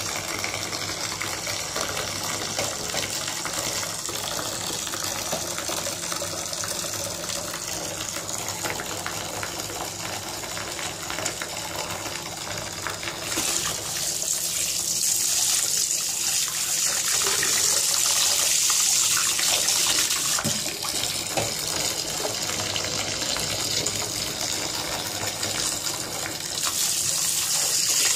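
Bath tap running into a filling bathtub, a thin stream splashing into foamy water. About halfway through it gets louder and hissier, as the stream falls onto a hand holding a bubble bar beneath it.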